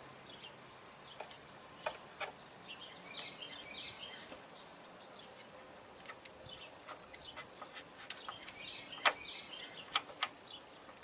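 Faint metal clicks and light scraping as an Allen wrench turns the pad retaining pin out of a motorcycle's front disc-brake caliper. The clicks come a few at a time, most of them near the end.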